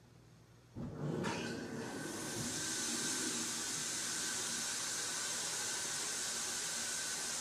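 Near silence, then about a second in a steady hiss sets in and holds, with a faint steady tone beneath it.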